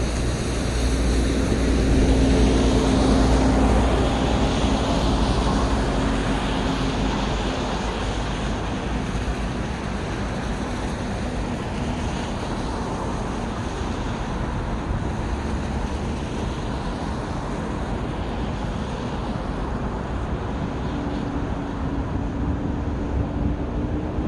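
Urban road traffic: a steady wash of passing vehicles. One vehicle goes by louder in the first few seconds, its engine hum fading by about seven seconds in, and another engine hum comes in near the end.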